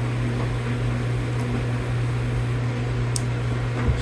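Steady low background hum, even in level throughout, with one faint short click about three seconds in.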